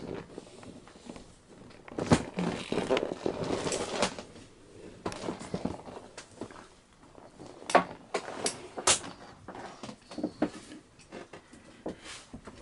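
Scattered knocks and clicks, with a denser stretch of rustling about two to four seconds in and a few sharp clicks near the middle: the handling and movement noise of someone moving through a yacht's galley.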